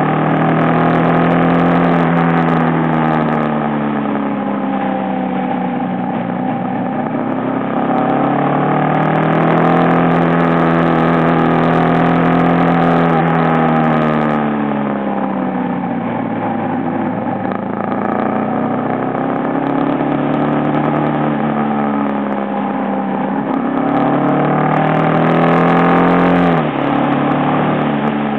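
Aprilia Pegaso motorcycle engine under way, heard from the handlebars. Its pitch rises and falls several times as the rider accelerates and backs off through the bends, with a sudden drop near the end as the throttle is closed or a gear changed.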